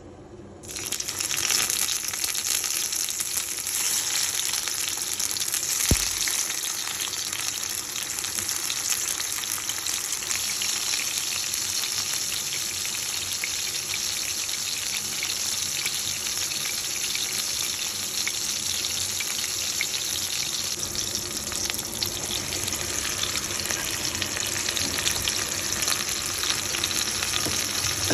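Food frying in a hot pan with a steady sizzle that starts abruptly about a second in, with a single knock about six seconds in.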